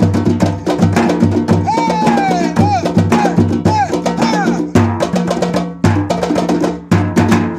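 A percussion group drumming a fast, dense rhythm, with a deep drum repeating a steady pattern under sharp high strokes. Falling high-pitched calls sound over the drums for a few seconds in the middle, and the playing breaks off at the end.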